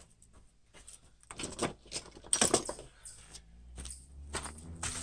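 Metal clinks and rattles of hand tools and car parts being handled, in a few short clusters.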